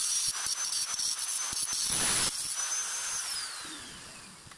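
Small handheld electric disc grinder running with a high whine, grinding into a thin metal strip in short contacts with the loudest grinding about two seconds in. About three seconds in it is switched off and the whine falls away as the disc spins down.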